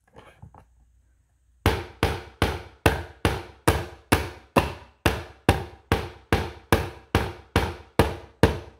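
A hammer striking a wooden board again and again at a steady pace of about three blows a second, starting a couple of seconds in: a child hammering on a wooden tray kit.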